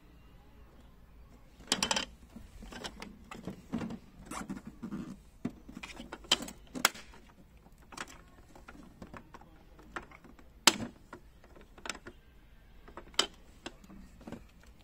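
Hard plastic Festool Systainer³ organizer case being handled: irregular sharp plastic clicks and knocks from the case and its handle, with a quick clatter about two seconds in.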